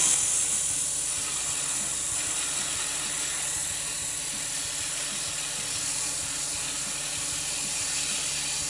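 Mini lathe running while 80-grit sandpaper is pressed against a spinning cork grip blank: a steady rough hiss of sandpaper on cork over the lathe's faint motor hum, a little louder in the first second. This is the rough-shaping stage, taking the cork rings and glue lines down.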